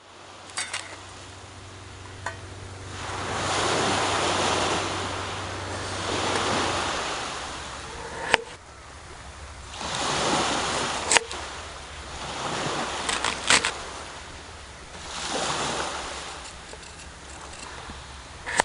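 Rushing water swelling and fading every two to three seconds, with a few sharp clicks and a low steady hum that stops partway through.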